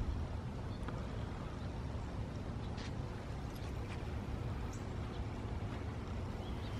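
Steady outdoor background noise with a low rumble, with a few faint, short high chirps scattered through it.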